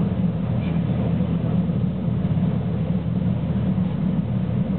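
NH90 Caiman helicopter's main rotor and twin turbine engines running in a low hover just above a ship's flight deck as it comes in to land: a steady, even low rumble.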